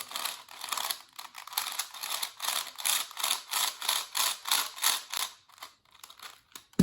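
Older Rubik's-brand 4x4 cube being turned over and over: rough plastic layers scraping and clicking in quick strokes, about three or four a second, then dying away. A single sharp knock comes right at the end.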